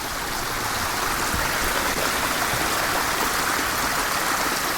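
Spring-fed water trickling and spattering out of holes in a rock ledge under a waterfall, a steady rushing splash.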